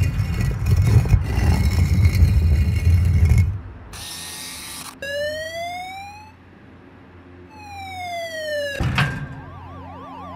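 Electronic sound-design soundtrack of a projection-mapping show over loudspeakers. It opens with a heavy low rumble that stops about three and a half seconds in. A burst of noise follows, then a rising synth sweep, a falling sweep, a sharp hit and warbling electronic tones near the end.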